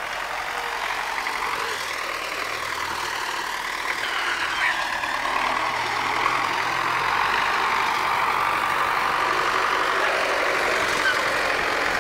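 MTZ-80 tractor's diesel engine running as the tractor drives by with its mounted plow, getting steadily louder as it comes closer.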